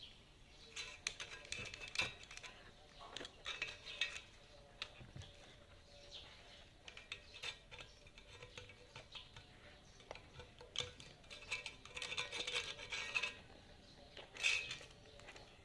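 Small metal tools and parts being handled on a workbench during a loudspeaker repair: irregular clinks, taps and scraping, busiest in a run of scraping and rattling about two-thirds of the way through.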